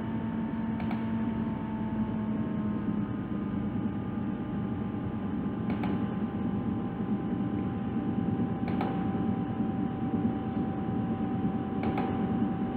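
Steady low hum and hiss of background room noise with a faint steady whine, broken by a few faint short clicks.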